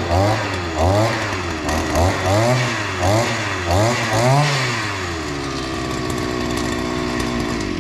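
RELOAD 541 two-stroke gasoline brush cutter engine being test-run: the throttle is blipped over and over, the engine revving up and back down about twice a second for the first four or so seconds, then it settles into a steady run.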